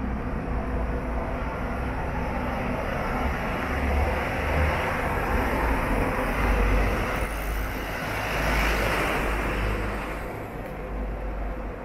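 Street traffic noise with a low rumble. One vehicle passes close: its noise builds about seven seconds in, peaks, and dies away a couple of seconds later.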